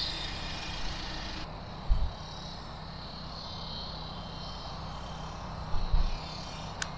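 Steady rumble of highway traffic, with two low thumps on the microphone about two seconds in and again near the end.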